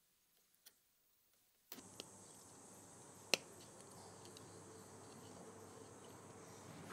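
A few sharp small clicks, the loudest about a third of the way in, consistent with gear lever parts being handled on a table. Under them is a faint steady background with a high thin tone that comes in about two seconds in.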